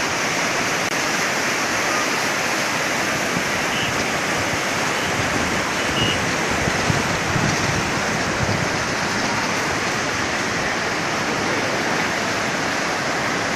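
Teesta River floodwater rushing in a steady, even rush of noise.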